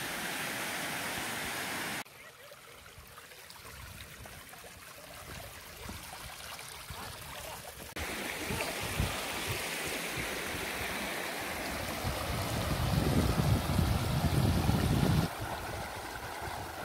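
Running water: the rush of waterfalls below the canyon rim, then a shallow rocky stream flowing over stones. It comes in separate takes that change abruptly about two and eight seconds in and near the end, and it grows louder, with a low rumble, for a few seconds before the last change.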